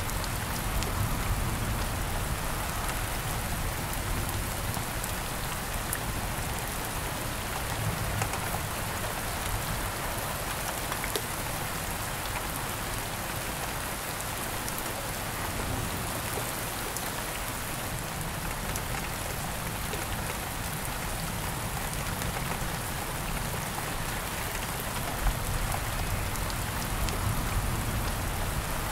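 Steady rain falling: an even hiss with many fine drop ticks and no let-up.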